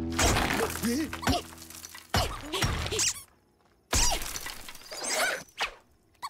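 Cartoon crash effects as bricks smash and scatter: three loud crashes about two seconds apart, with short gliding squeals between them. Backing music drops out after the second crash.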